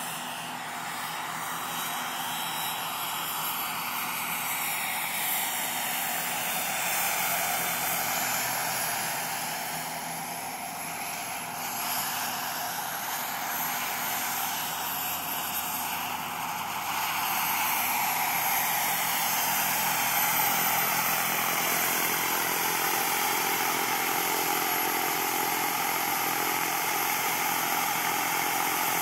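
Turbine-powered RC model helicopter in flight: a steady high rushing sound from its small gas turbine and rotor, sliding up and down in pitch as it passes back and forth. It grows louder about two-thirds of the way through.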